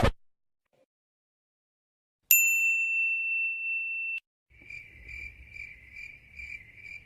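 A single bright 'ting' ding sound effect that rings steadily for about two seconds and cuts off abruptly. Then a cricket-chirping sound effect begins, high chirps evenly spaced at about two a second.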